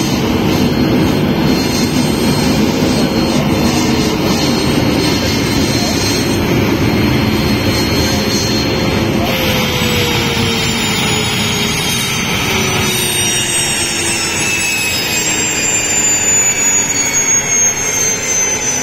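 Turbolekt 333 generator's gas turbine running with a loud, steady jet-like whine and rush. About nine seconds in, its whine starts to fall steadily in pitch as the turbine spools down.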